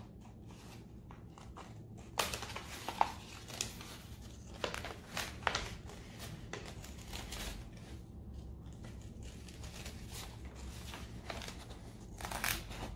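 Plastic-backed rub-on transfer sheet rustling and crinkling as it is handled and trimmed, in short irregular rustles, most of them between two and six seconds in and again near the end.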